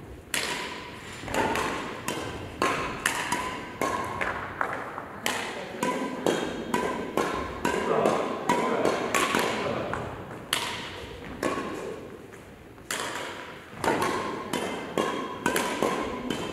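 Badminton rackets hitting a shuttlecock: many sharp taps, irregular at about one to two a second, echoing in a large hall, with brief squeaks between hits.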